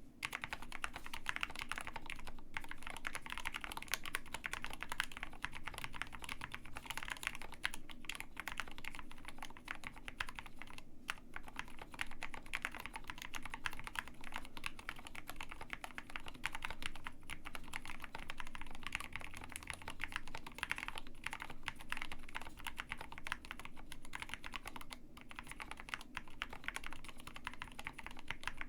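Continuous fast typing on a KBD67 Lite R2 65% custom mechanical keyboard with Gateron Black Ink V2 linear switches: a dense, even stream of keystroke clacks with a few brief pauses.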